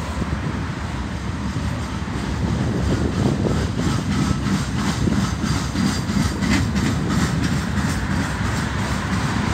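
Boxcars and autorack cars of a freight train rolling past: a steady rumble of steel wheels on rail, with a run of clicks and clatter from the wheels through the middle.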